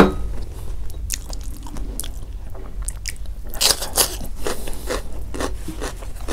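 Close-miked chewing of a mouthful of rice and greens, with wet mouth clicks and smacks. A louder cluster of clicks comes about three and a half to four seconds in.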